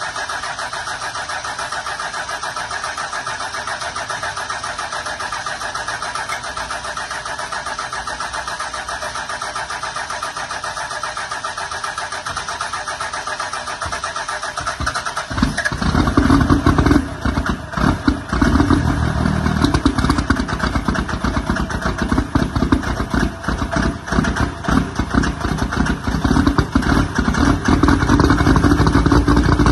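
Cold start of a diesel Dodge Ram pickup. The engine cranks over steadily with a fast, even chatter for about fifteen seconds. It then catches and runs loud and uneven with a deep rumble, as the exhaust blows white smoke of unburnt fuel.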